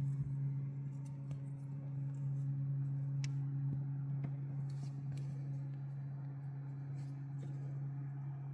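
Steady low hum, with scattered light clicks and taps of small objects being handled.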